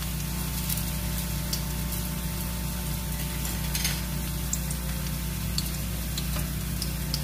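Wonton-wrapped meatball skewers frying in hot oil in a pan: a steady sizzle with scattered small pops and crackles over a low steady hum.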